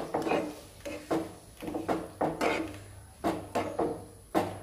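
A plastic spatula stirring thick chickpea ragda in a nonstick frying pan, scraping and knocking against the pan in quick repeated strokes, about three a second.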